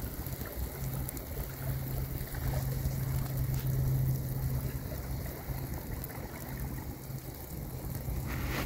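Rain falling on the river and sand, with wind rumbling on the phone's microphone. A low steady hum runs underneath and fades after about five seconds.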